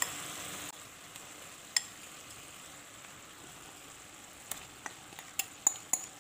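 Masala gravy in a kadhai simmering with a faint steady sizzle, with sharp clinks of a metal spoon against a glass bowl as marinated soya chaap pieces are scooped into the pan: one clink about two seconds in, then several close together near the end.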